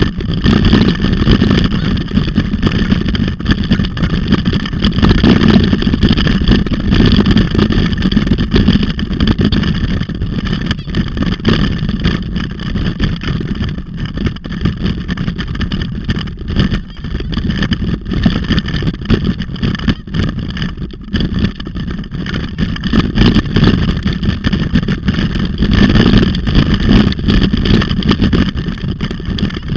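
Steady rumble and rattle from a handlebar-mounted camera jolting over a bumpy forest dirt trail at speed, with wind buffeting the microphone and frequent short knocks from the bumps.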